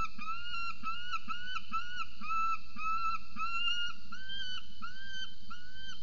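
Peregrine falcon calling: a steady series of short, arched, whining notes, a little over two a second, that stops near the end.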